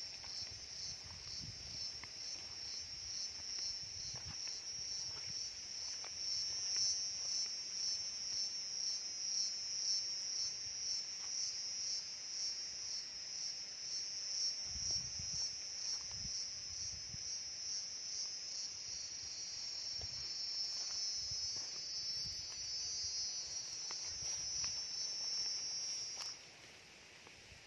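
A high-pitched, pulsing insect chorus that drones on steadily and stops abruptly near the end, with a few soft low thuds underneath.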